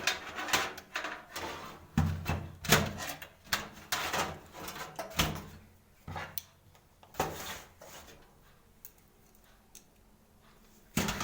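A power supply unit being handled and fitted into a metal desktop computer case: a series of knocks, clunks and scrapes that dies down after about seven seconds.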